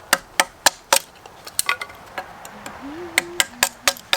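Quick series of sharp knocks, about ten in uneven groups, with a brief low hum about three seconds in.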